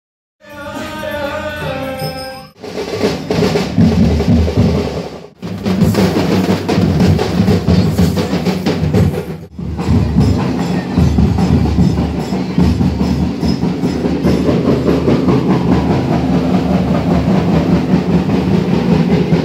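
A short stretch of melodic music gives way to loud, dense drumming with a rolling beat, broken twice by brief cuts.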